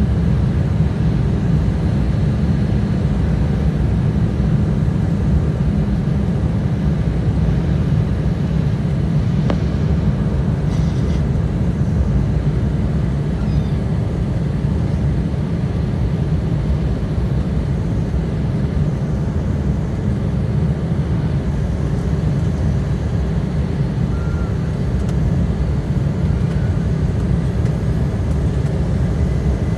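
Steady low rumble of engine and airflow noise inside the cabin of an Embraer ERJ-175 jet airliner, whose two GE CF34 turbofans are under the wings, as it descends on approach to land.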